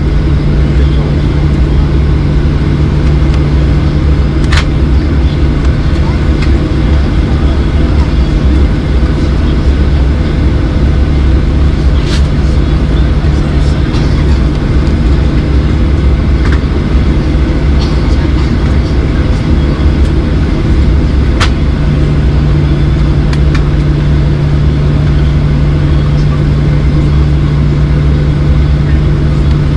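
Steady, loud cabin noise of a Boeing 737-800 airliner: a deep rumble with a constant low engine hum, heard from inside the passenger cabin, with a few faint clicks scattered through.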